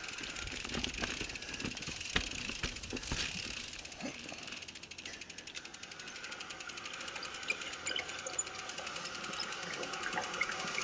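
Norco Range mountain bike's rear freehub ticking rapidly and steadily as the rider coasts, over the low rumble of tyres rolling across dirt and rock, with a few knocks from the bike about two and three seconds in.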